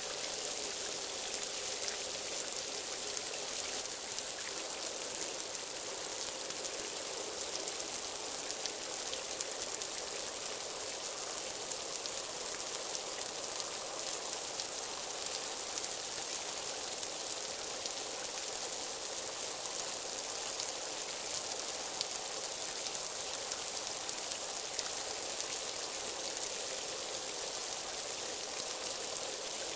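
Steady rain falling: an even hiss scattered with fine drop ticks.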